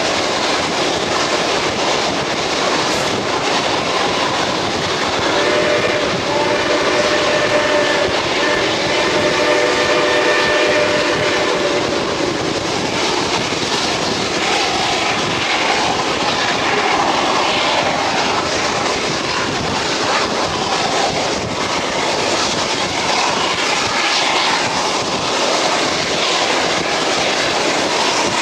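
Passenger train running, heard from an open coach window: a steady rush of wind and wheel noise. About five seconds in, the train's horn sounds several tones together, held for about seven seconds.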